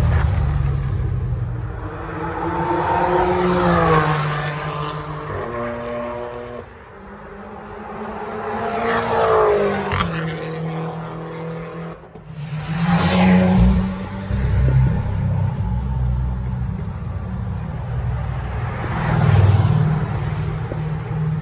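Sports and race car engines revving hard and accelerating away, one car after another, each with a sharply rising pitch; one clip breaks off abruptly about twelve seconds in.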